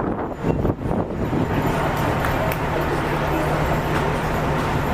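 Steady low engine hum with street noise and background voices.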